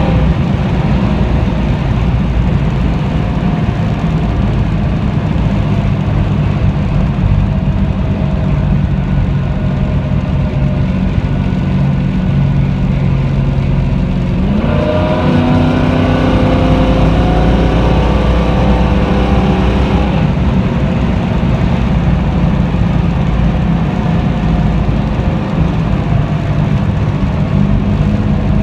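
1969 Plymouth Road Runner's V8 engine running as the car drives. About halfway through, the engine note jumps up and climbs for several seconds as the car accelerates, then holds steady.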